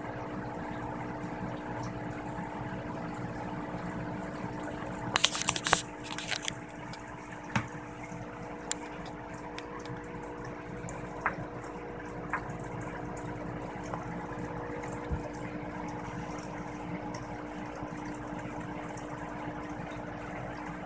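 Steady machine hum with several held tones, from a motor or pump running in the room. About five seconds in comes a burst of clattering and rustling handling noise, followed by a few scattered single clicks.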